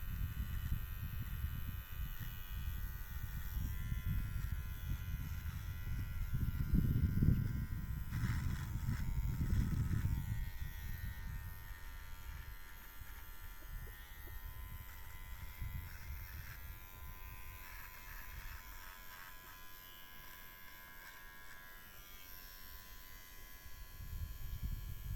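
Electric hair clippers buzzing steadily during a haircut, with a low rumble that swells for a few seconds near the middle.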